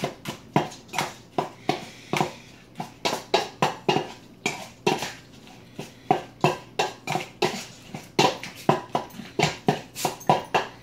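A utensil stirring a thick, wet homemade dog-food mix of mashed sweet potato, eggs, oatmeal and oil in a container: wet squishing strokes and knocks against the container, about two to three a second in an uneven rhythm.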